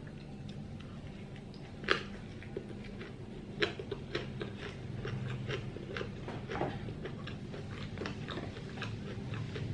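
Close-miked eating of a Vietnamese fresh spring roll with shrimp and pork. A sharp bite comes about two seconds in, then a run of irregular chewing clicks and mouth sounds.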